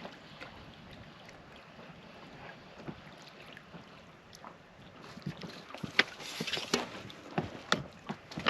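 Water lapping against a small boat's hull, with scattered sharp clicks and knocks that come thicker and louder in the second half.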